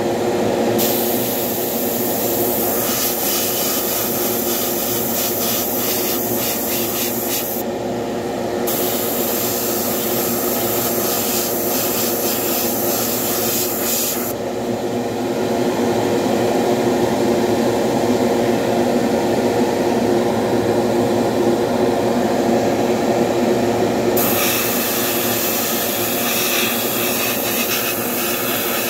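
Airbrush spraying paint, a hiss of compressed air that comes in stretches: on for about seven seconds, a brief break, on again until about halfway, off for roughly ten seconds, then back on near the end. Under it a steady hum runs throughout.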